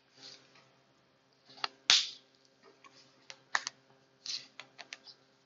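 Computer keyboard typing: scattered, irregular key clicks, the loudest about two seconds in, with a few short hissing sounds between them.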